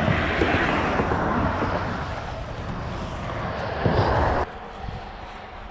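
Highway traffic rushing past: a steady noise that cuts off abruptly about four and a half seconds in.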